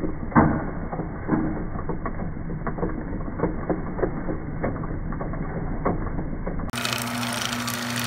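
Garage door opener running with its cover off: a low motor hum with irregular clicks and knocks from the drive. Near the end a steadier, higher-pitched motor hum takes over as the white drive gear spins.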